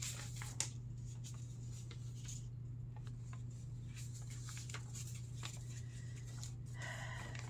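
Quiet room tone: a steady low hum with scattered faint clicks and rustles, and a brief faint pitched sound near the end.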